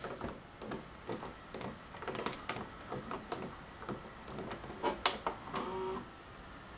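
Faint, irregular light clicks and knocks from a hand handling a Matsui video cassette player, with a short steady hum about five and a half seconds in.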